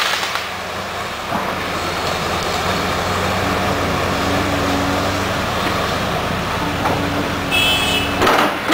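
Cat 328D excavator's diesel engine running steadily, with a brief high-pitched squeal near the end.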